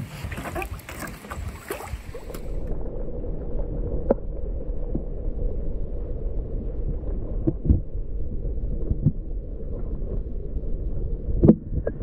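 Canoe hull knocking and scraping as it is slid off a rock ledge into the water. After about two and a half seconds the sound turns dull and muffled, a low underwater rumble with a few scattered knocks, heard through a submerged microphone.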